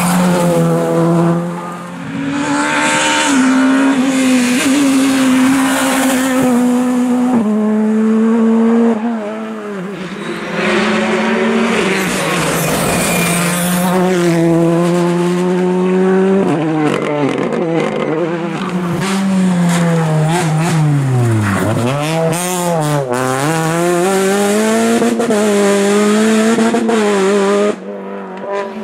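Rally cars passing one after another through corners, their engines revving hard. Pitch climbs through the gears and drops sharply as they brake, with sharp cracks on the overrun in the middle.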